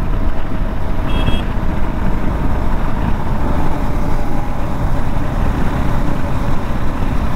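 Wind rushing over a handlebar-mounted action camera on a KTM 390 Adventure cruising at about 70 km/h, with the single-cylinder engine humming steadily underneath. A brief high beep sounds about a second in.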